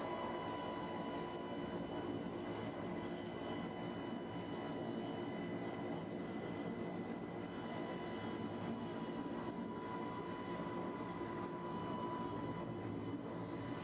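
Steady mechanical drone with a thin, constant high whine laid over it, unchanging throughout: machinery or ventilation noise aboard ship.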